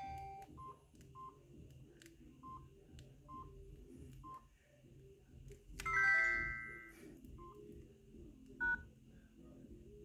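Samsung SGH-D500C mobile phone's keypad beeps: about five short single beeps over the first four and a half seconds. About six seconds in comes a louder alert tone of several notes that fades over about a second, then one more short beep near the end.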